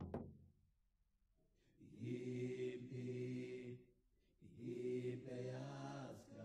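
Soundtrack chant of low male voices singing two long held phrases, with a short break between them. A drumbeat from the music before dies away in the first moment.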